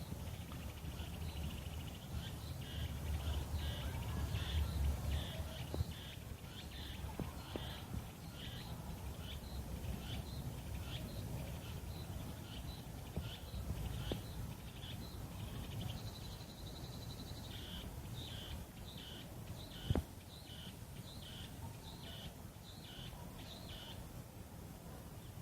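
Meimuna opalifera (walker's cicadas) singing in chorus: short pulsed phrases repeated about twice a second, with a steadier buzz for a moment about two-thirds of the way through. A low rumble runs underneath, and there is a single sharp click near the end.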